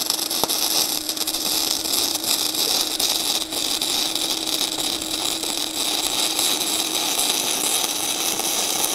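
Gasless flux-core MIG welding arc from a YesWelder DP200 feeding .035 in (0.9 mm) flux-core wire, crackling and sizzling steadily and unbroken as a fillet weld is run along a steel T-joint on the machine's synergic flux-core settings.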